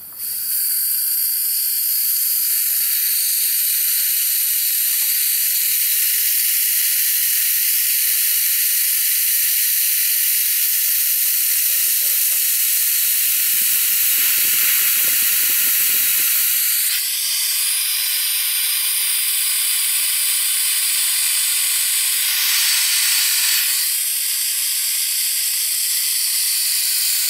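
Compressed air hissing steadily out of a homemade fridge-motor compressor's air tank as it is bled down from its 120 psi cut-out pressure. The hiss is loud and high, and its tone shifts a little about two-thirds of the way through.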